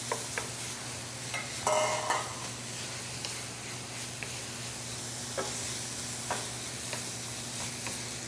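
Freshly added raw pork shoulder sizzling in hot oil and lemongrass paste in a stainless steel skillet, stirred with a wooden spoon that taps and scrapes against the pan. There is a louder clatter about two seconds in.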